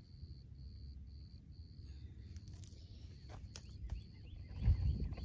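Wind rumbling on the microphone and handling noise as a small caught bass is unhooked by hand, with a few short clicks and a louder bump near the end. Behind it, a faint high-pitched chirp repeats about twice a second.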